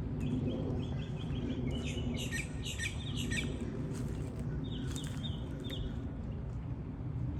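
Songbirds chirping in several quick bursts of short, rapid, high notes over a steady low background rumble.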